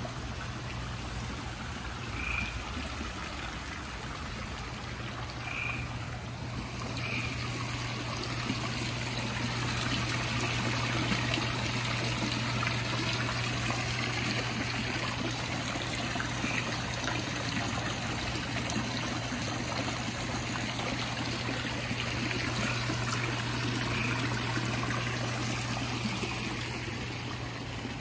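Gray treefrogs calling, with short trills standing out now and then, over a steady trickle of water and a low hum.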